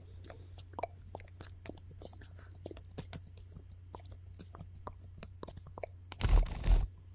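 Close-miked crinkling and small clicks of a paper butterfly being handled and its wings bent between the fingers, then a louder brushing thump about six seconds in.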